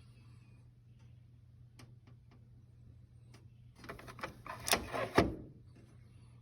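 Wire connectors being pulled off a dryer's control board, with plastic clicks and rattles. A few faint clicks come first, then a busier run of louder clicks and knocks about four to five seconds in.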